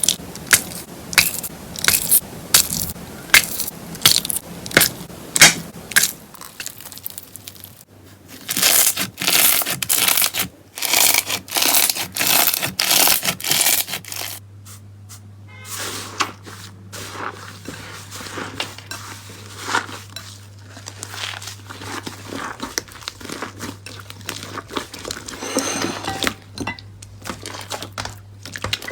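Slime being squeezed and pressed by hand: first a run of sharp popping clicks about twice a second, then longer crunchy, crackling squishes, then softer, quieter crackling over a low steady hum.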